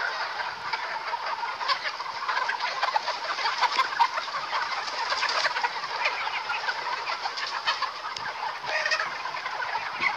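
A large flock of native free-range chickens clucking and calling all at once, many overlapping short calls forming a steady din.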